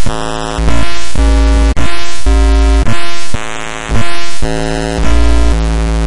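Buzzy electronic synthesizer sounds: held notes rich in overtones over heavy bass, changing every half second to a second, with the bass coming in and out in loud stretches.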